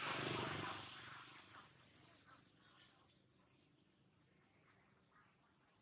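A steady, high-pitched insect chorus of crickets or cicadas, with a rustling noise at the start that fades over the first second or two.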